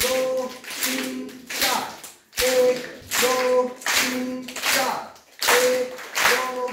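A large crowd clapping hands together in unison as a clapping-therapy exercise, a little under two claps a second, with voices chanting in time with the claps.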